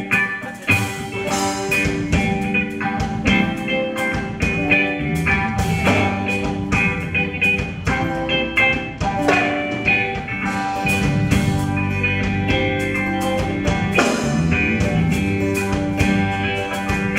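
A band playing the instrumental opening of a festive Brazilian song, with sharp beats coming at a steady pace under held notes.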